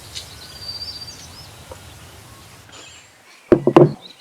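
A bird chirps briefly near the start over a low outdoor rumble. About three-quarters of the way in, a quick cluster of loud knocks or strikes lasts under half a second.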